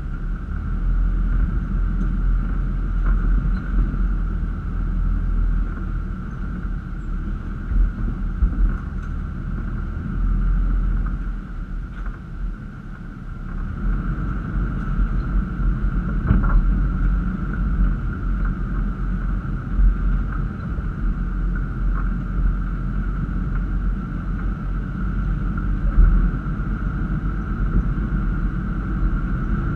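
Toyota Land Cruiser FZJ80's straight-six engine running at low speed as the truck crawls over a rocky dirt trail, a low rumble with a steady high-pitched hum and occasional knocks from the rough ground.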